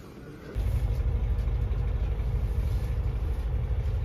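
Steady low rumble of an express coach's engine heard inside the passenger cabin, starting abruptly about half a second in after faint background noise.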